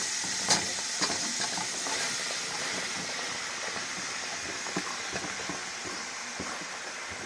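Okra frying in hot oil in a pan: a steady sizzle full of small crackles and pops, with a few sharper clicks in the first second or so.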